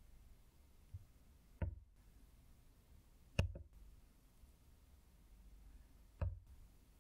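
Wooden spoon knocking against a glass mug while scooping whipped dalgona coffee foam: three sharp taps, about one and a half, three and a half and six seconds in, with a fainter one about a second in.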